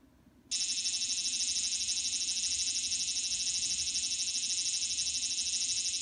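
Recorded call of a large brown cicada (aburazemi) played from a children's toy sound player's small speaker: a steady, high buzz that starts about half a second in.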